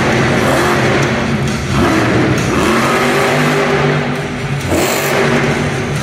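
Megalodon monster truck's supercharged V8 engine revving and running hard, its pitch rising and falling as the throttle is worked.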